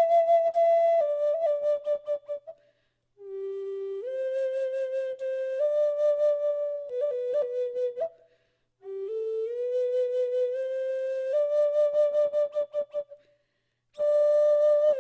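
Native American flute playing a slow melody of long held notes. The phrases last several seconds, with short pauses between them.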